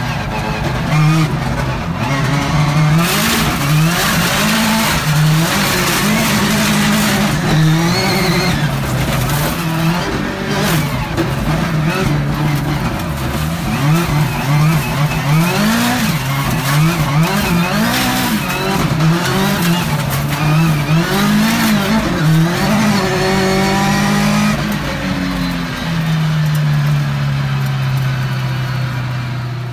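Subaru WRX STI rallycross car's turbocharged engine revving hard and dropping again and again as the car accelerates, brakes and turns through the course, its pitch rising and falling about once a second, with stretches of tyre and gravel noise. Near the end the engine holds a steadier note for a few seconds.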